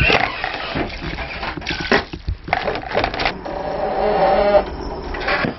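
Water poured from a plastic bowl over bean sprouts in a metal pot, with knocks and clatter of kitchenware. A wavering, drawn-out pitched sound lasts about two seconds in the middle.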